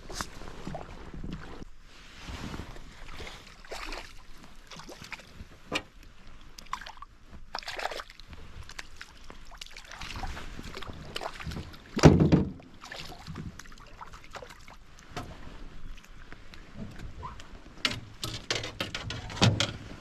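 Scattered knocks, clicks and rattles of gear being handled in a small fishing boat, with one loud thump about twelve seconds in and a quick run of clicks near the end.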